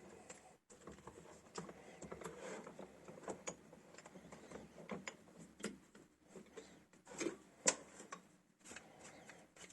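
Irregular small clicks and knocks of metal parts being handled and set up on the drill press, with a couple of sharper taps about seven to eight seconds in. No motor is running.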